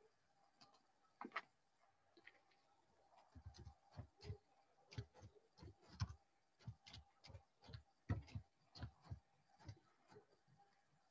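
Faint typing: irregular light taps and clicks, a few a second, starting about three seconds in.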